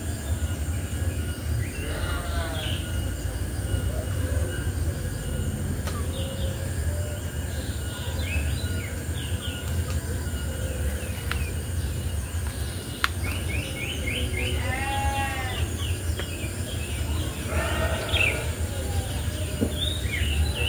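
Outdoor forest ambience: a steady high insect drone and a low rumble, with several short animal calls, some arching and bleat-like, about two seconds in, about fifteen seconds in and near the end, and quick chirps between them.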